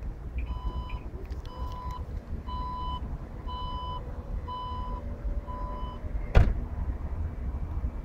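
Škoda Octavia III's electric tailgate closing by remote: six warning beeps about a second apart while it lowers, then a loud clunk as it latches shut about six seconds in.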